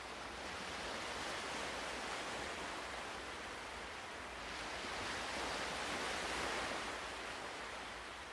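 Ocean surf washing in slow swells, rising and falling twice.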